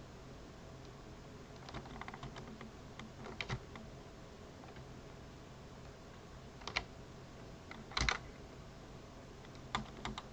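Computer keyboard keystrokes and clicks, coming a few at a time with pauses between, the loudest about eight seconds in, over a faint steady low hum.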